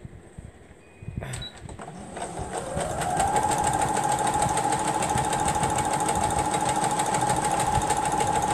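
Electric sewing machine starting up after a click: the motor whine rises over about a second, then holds steady as it stitches at full speed with rapid, even needle strokes.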